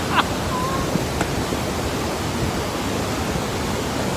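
Gullfoss waterfall's water pouring down, a steady, even rush of noise.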